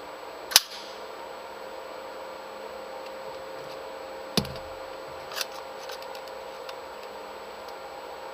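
Three sharp clicks: a loud one about half a second in, a second a little past four seconds, and a fainter one about a second later, over a steady faint hum.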